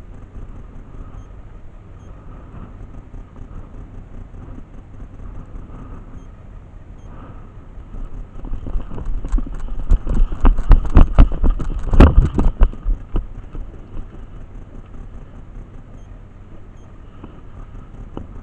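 A low steady rumble, with a stretch of rapid, irregular thumps and clatter from about eight to fourteen seconds in, loudest around twelve seconds.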